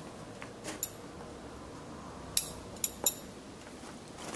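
Bonsai scissors snipping dead twigs out of a Japanese white pine bonsai: sharp metallic snips, one about a second in and three in quick succession a little past the middle.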